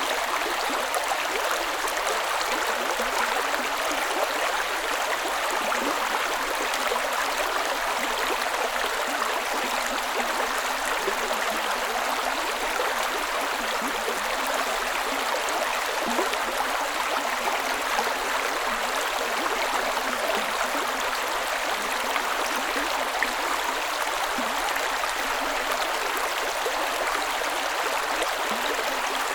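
Creek water running and burbling over rocks, a steady, even rush with fine gurgling detail.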